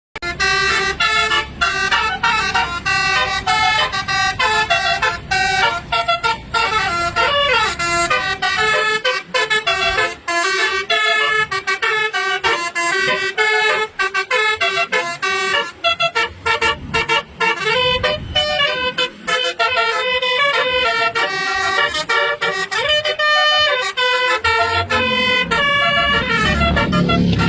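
Basuri 'telolet' multi-tone musical bus horn playing a fast tune, its notes stepping up and down one after another without a break. Near the end a low engine rumble rises in under it.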